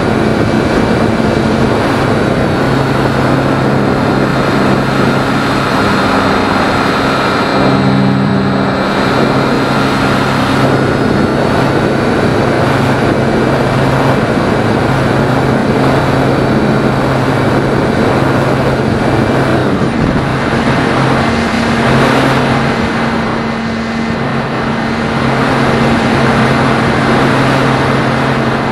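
Onboard sound of a Phoenix 2000 RC electric motor glider in flight: steady rushing air over the airframe, with the hum of its electric motor and propeller dropping out and coming back a few times.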